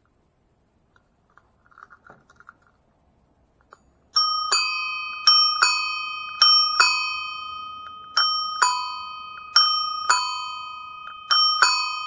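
Vintage Schwinn large chrome ding-dong bicycle bell rung by hand off the bike, not mounted on handlebars. From about four seconds in it gives six quick two-note ding-dong pairs, and the tones ring on between strikes. Faint handling rustles come before the ringing.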